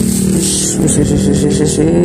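Background music with held notes over a light, quick percussive beat.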